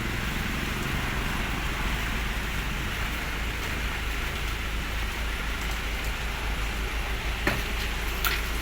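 Garbage truck on the move, its engine a steady low rumble under a hiss of light drizzle, with a couple of short sharp knocks near the end.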